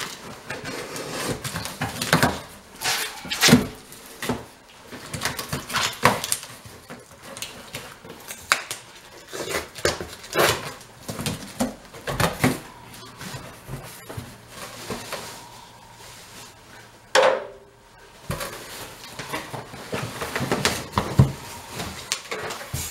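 Grill parts and packaging being handled in a cardboard box: irregular knocks, rustles and light metal clinks, with one longer, louder scrape or tear about three-quarters of the way through.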